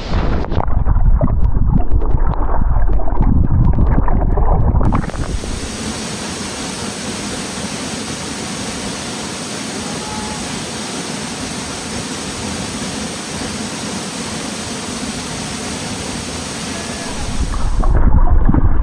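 Powerful waterfall, swollen with storm runoff and snowmelt, rushing steadily as an even full hiss. For about the first five seconds, and again near the end, heavy low buffeting on the microphone from wind or spray muffles it.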